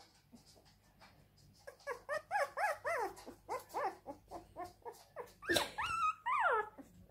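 Young Siberian husky puppy crying: after a quiet start, a fast run of short, high whimpers that each rise and fall, about three or four a second, then a longer cry that slides down in pitch near the end.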